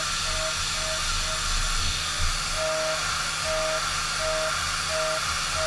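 End mill in a Tongtai CT-350 5-axis machining center milling P20 mold steel at about 9,500 rpm. A steady hiss runs under a whining tone that comes and goes in regular pulses under a second apart, as the cutter engages in repeated light, full-depth passes. The pulses stop for about a second near the middle, with one brief knock.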